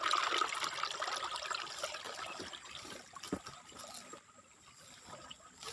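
Water trickling and splashing with many small crackles, loudest in the first couple of seconds and then fading.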